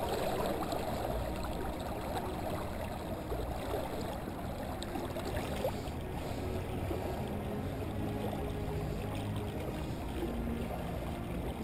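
Water rushing and lapping along the hull of a small semi-rigid boat moving at speed under an electric motor, with a faint low hum. The wash of water is steady throughout.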